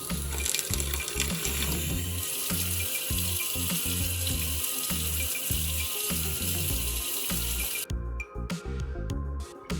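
Water running from a tap into a sink, getting stronger about two seconds in and cutting off abruptly near the end as the tap is shut. Background music with a steady beat plays throughout.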